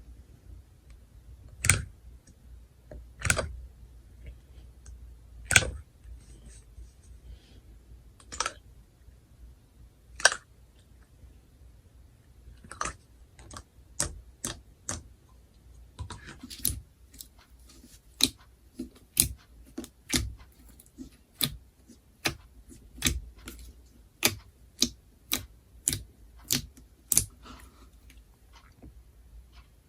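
Slime being pressed and poked, giving sharp, crisp clicking pops: sparse at first, then coming quicker, nearly two a second, in the second half.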